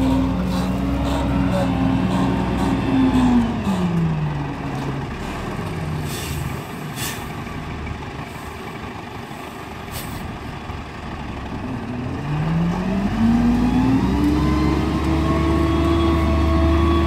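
1996 Peterbilt 357's Caterpillar 3306 turbo diesel engine running at raised revs, dropping slowly to idle for several seconds, then revving back up and holding high near the end. A short hiss of air comes while it idles.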